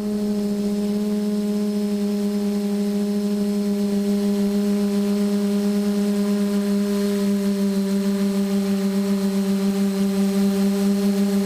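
Quadcopter's electric motors and propellers running in flight: a steady buzzing hum with a slight, quick pulsing.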